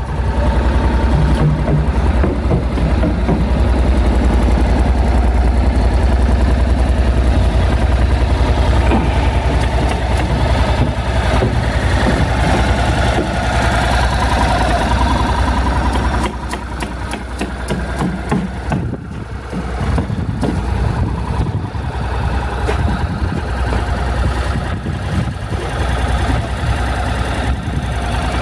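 Honda NC700X's parallel-twin engine idling steadily. A little past halfway there is a short run of quick clicks, and the engine sound dips slightly.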